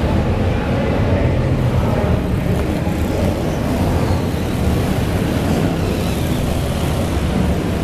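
Slingshot race cars' small engines running as the field laps an indoor arena oval: a loud, steady, dense engine din with no single car or event standing out.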